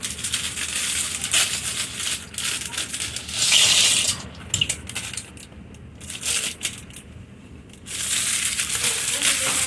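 Crinkling and crunching in irregular bursts, most likely a packet of dry noodles being handled and the noodles crunching as they are tipped out. The sound is loudest about three and a half seconds in and quieter from about five to eight seconds in.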